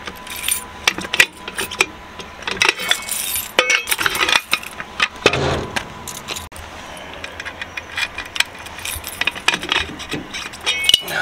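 Steel wheel-clamp tire locks being fitted onto trailer tyres: the clamp arms clank and rattle, and a key jingles and clicks in the lock. A series of short metallic clicks and clinks with a few brief rings.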